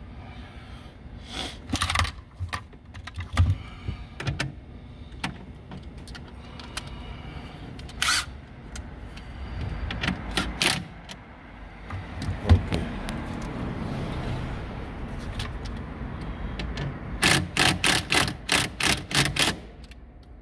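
Handheld cordless drill/driver fastening a car's rear body control module, with clicks and knocks from parts being handled. Near the end the tool runs in a quick series of about ten short bursts.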